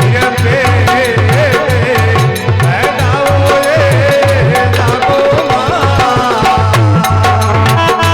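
Instrumental interlude of Rajasthani folk devotional music: a bending melody line over a steady, driving hand-drum beat.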